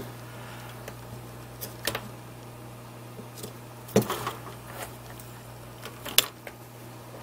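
A few short, sharp clicks and knocks, the loudest about four and six seconds in, as the data and power cables are pulled from a hard drive's connectors. A steady low hum runs underneath.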